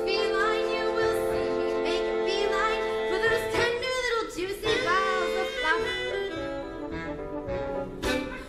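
Instrumental music from a comic song: held chords with a bending, wavering lead melody over them.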